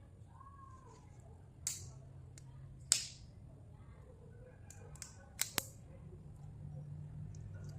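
Close-miked eating: sharp, crisp crunches as food is bitten and chewed, five in all, the loudest about three seconds in and three close together near the end.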